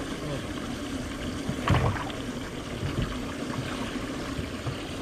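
Water lapping and trickling against a boat's hull, with a brief louder bump a little under two seconds in.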